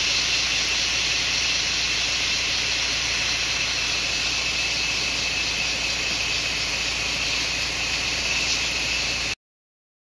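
A steady, even hiss with a faint high whine running through it, which cuts off suddenly near the end.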